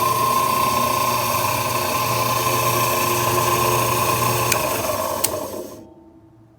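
The Climax 956D paper drill's 1/4 HP GE electric motor running with a steady hum and a high whine. After a click about five seconds in, it winds down and stops.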